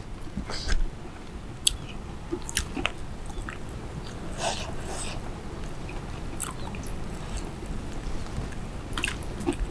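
Close-up eating sounds: a person chewing food, with short crisp crunches scattered irregularly through the chewing.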